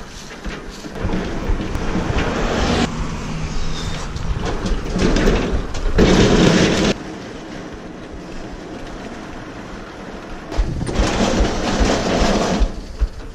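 A heavy appliance being dragged and shoved into a van, making long scraping and grinding noises in three spells, loudest in the middle one, with knocks in between.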